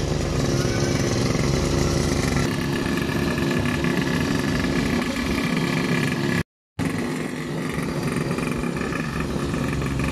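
Small 49cc two-stroke pocket bike engine running steadily. A split-second dropout to silence comes about six and a half seconds in.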